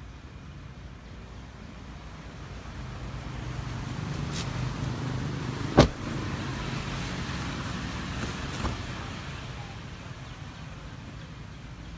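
A car door shuts with one loud thump about halfway through, over a steady low hum; a lighter click follows about three seconds later.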